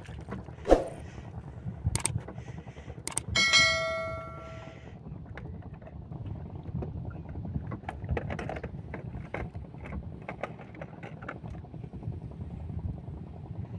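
A subscribe-button sound effect: a sharp hit, two clicks, then a bright bell chime that rings out and fades over about a second and a half. Underneath is a steady low rumble from the boat.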